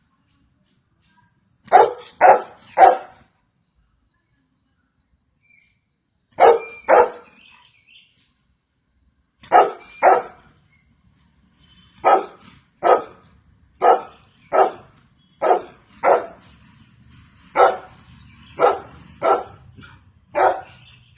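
Golden retriever barking: a quick run of three barks, then two pairs a few seconds apart, then a steadier string of ten single barks spaced about a second apart.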